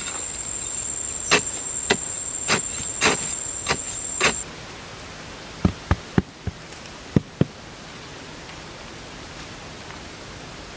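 A machete chopping into a bank of packed earth, six strikes about every half second, over a steady high insect drone. Then hands patting down loose soil, six soft thumps in pairs, over quiet forest hiss.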